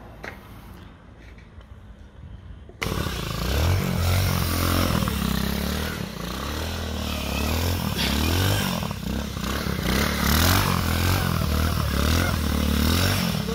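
A 110cc pit bike engine mounted on a mobility scooter, revving up and down repeatedly up close as the scooter spins circles. It cuts in suddenly about three seconds in, after a faint quiet stretch.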